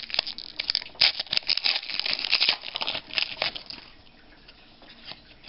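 Foil wrapper of a Panini Elite basketball card pack torn open and crinkled in the hands, a busy crackle of foil for about three and a half seconds, then it goes quiet.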